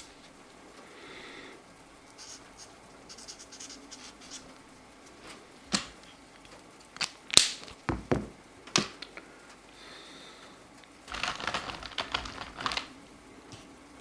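Felt-tip coloring markers being handled and used: a handful of sharp clicks and taps around the middle, then a burst of rapid scratchy marker strokes on paper near the end.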